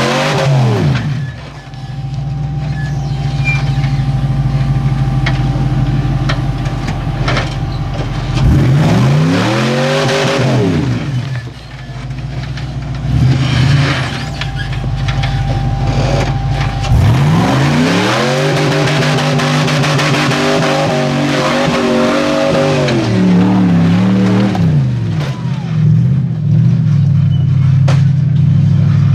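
Rock-crawling Jeep's engine working up a rock ledge, revved in surges that rise and fall and drop back to a steady low run in between: one rev dies away about a second in, another rises and falls about a third of the way in, and a longer spell of wavering revs comes past halfway.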